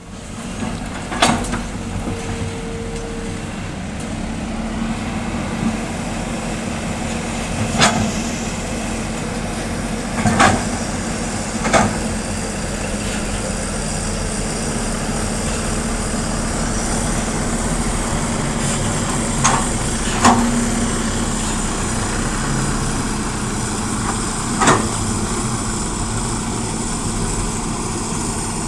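Diesel engines of an excavator and dump truck running steadily, with sharp clanks and knocks now and then as the excavator works.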